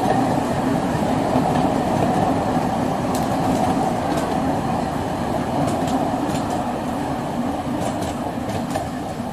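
Open passenger cars of a 15-inch-gauge park railway rolling past on a curve: a steady rumble of wheels on rail that slowly grows fainter, with a few light clicks.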